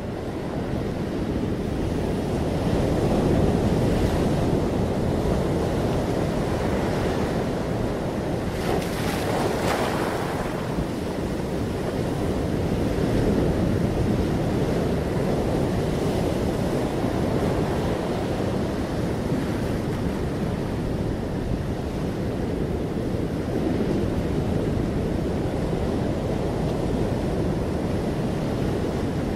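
Ocean surf: waves breaking and washing up over sand among rocks, a continuous rushing that swells and ebbs. One wave crashes with a brighter, hissier wash about nine seconds in.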